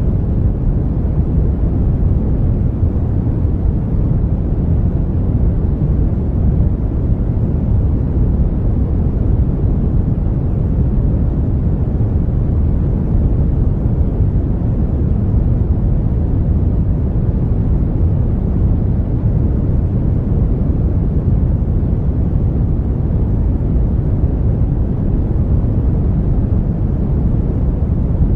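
Brown noise: a steady, even rumbling hiss weighted toward the low end, with little above a few hundred hertz and no changes.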